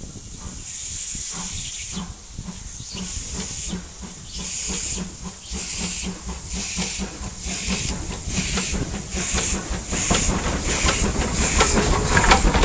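Small industrial saddle-tank steam locomotive working towards and past, chuffing in rhythmic bursts of steam that quicken and grow louder as it nears, with clanking from the running gear near the end.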